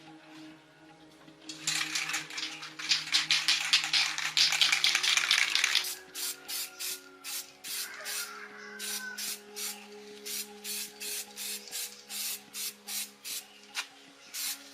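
Abrasive rubbing strokes, as in sanding or scrubbing a part by hand: a loud, fast run of strokes for a few seconds, then a steady back-and-forth of about two to three strokes a second, over quiet background music.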